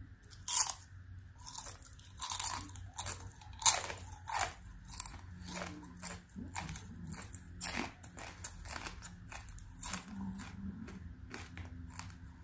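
Close-up chewing of a Black Forest scorpion's body, with many irregular sharp crunches as the dry, hard shell is bitten and ground between the teeth.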